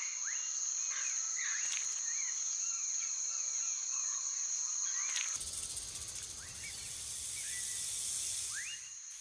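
A steady high-pitched insect trill with short rising chirps. About five seconds in, a rattlesnake's rattle starts buzzing, a dense, even buzz that covers the insects and stops just before the end.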